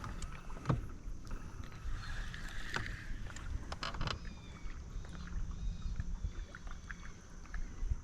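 Ambience on a fishing boat: a steady low rumble of wind and water, with scattered light clicks and knocks.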